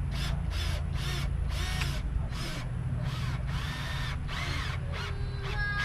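Power drill run in about ten short trigger bursts, the motor whining up and back down in pitch each time, as when driving screws.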